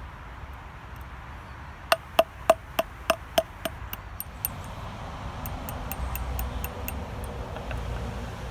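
Small hammer striking heavy-gauge steel fence wire on an old axe head used as an anvil while cold forging: about seven sharp, ringing metal-on-metal blows, roughly three a second, starting about two seconds in. A few lighter taps follow.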